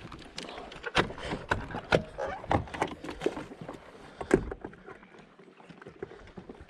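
Irregular knocks and clunks aboard a fiberglass bass boat, a quick run of them with the loudest about four seconds in, over a soft noise that then quietens.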